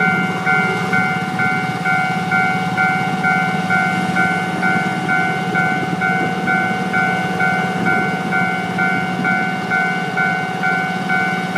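Railway level-crossing warning bell ringing, a bright electronic ding of several tones repeated steadily about twice a second, each strike fading before the next: the signal that a train is approaching.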